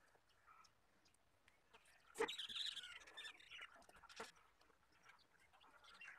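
Near silence, broken about two seconds in by a sharp click and about a second of faint, high chirping calls that slide in pitch, then another click a couple of seconds later.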